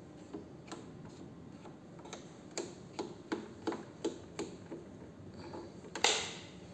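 Channel faders on an analog mixing console being pulled down one after another, each giving a sharp plastic click, about two or three a second, then a louder rustling knock near the end as the console is handled.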